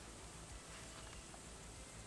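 Quiet outdoor background hiss with a couple of faint soft ticks about three-quarters of a second and a second in.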